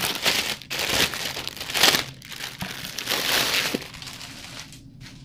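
Packaging crinkling and tearing as wooden plates are unwrapped, in several rustling bursts, loudest about two seconds in and dying down near the end.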